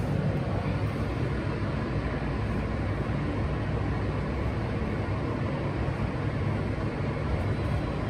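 New York City subway car running, heard from inside the car: a steady low rumble of wheels and motors.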